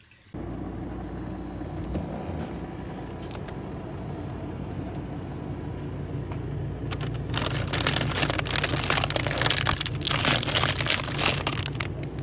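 Steady low machine hum, then from about seven seconds in a plastic ice-bar wrapper crinkling loudly as it is picked up and handled.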